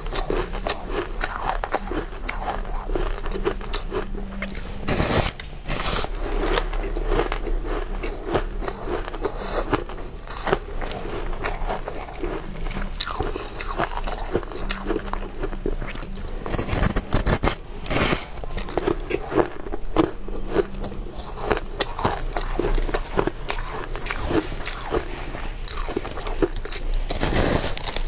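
Close-up biting and chewing of a frosty block of pink ice: a dense, continuous run of crunches and crackles, with a few louder bites along the way.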